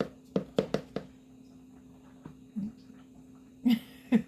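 A series of short light knocks and taps as kitchen containers are handled while cornstarch is added to flour. There are several quick taps in the first second and two louder knocks near the end, over a faint steady low hum.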